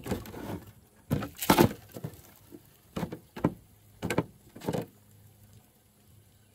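Close handling noise: a string of sharp knocks and short scrapes, the loudest about a second and a half in, the last just before five seconds in, then quiet.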